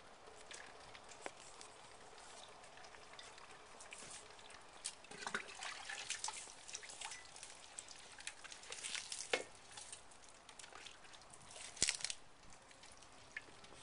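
Water dripping and trickling from an AquaPail gravity-fed purification bucket into a clear container below, an irregular patter with a few sharp clicks.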